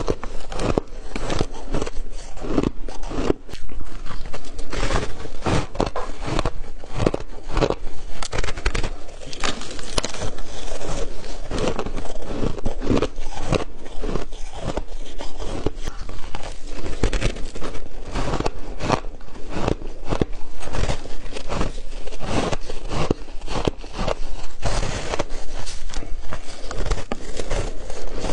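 Frozen shaved ice being bitten and chewed, crunching and crackling between the teeth in a dense, unbroken run of cracks.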